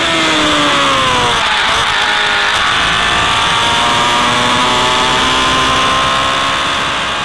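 Racing car engine running at high revs. Its pitch drops over the first couple of seconds, then holds and creeps up slightly, fading near the end.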